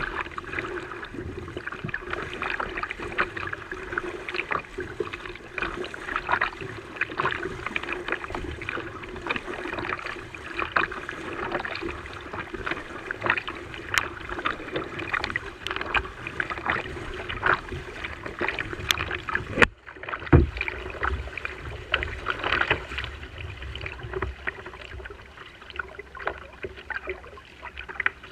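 Water splashing and lapping around a fishing kayak on the move, with many small irregular splashes over a steady low hum. About twenty seconds in the sound drops out for a moment, then a dull low thump follows.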